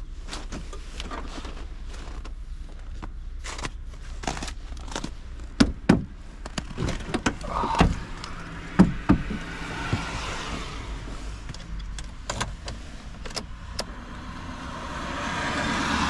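A snow-covered, frozen car door being worked open, with ice and packed snow cracking and breaking away in a run of sharp clicks and knocks and several heavy thuds. This is followed by rustles and knocks as someone climbs into the driver's seat.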